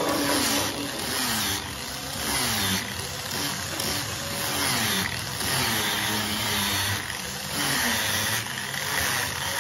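Electric angle grinder with a sanding disc running against a wooden tabletop. About once a second its pitch slides down and the level swells as the disc is pressed into the wood and moved along.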